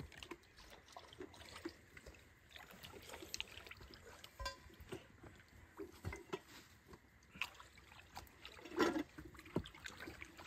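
Light splashing and trickling of water with scattered small knocks and clinks, the loudest about nine seconds in.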